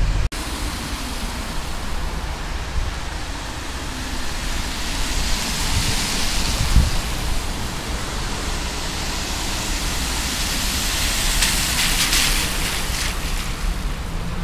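Wind rumbling on the microphone with the hiss of car tyres on a wet road, the hiss swelling as cars pass about midway and again near the end.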